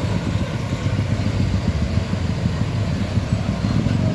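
A truck's engine running as it drives along the road, a steady low rumble.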